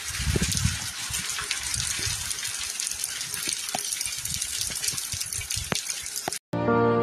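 Steady rain falling, an even hiss with scattered drips and taps. It cuts off about six and a half seconds in and music begins.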